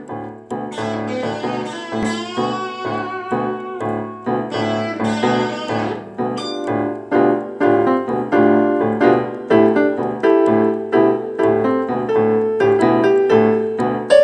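Background piano music, a run of quick, evenly struck notes.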